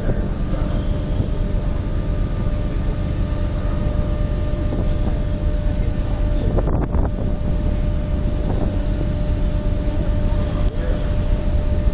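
Ferry's engines running with a steady hum over a low rumble, with wind buffeting the microphone.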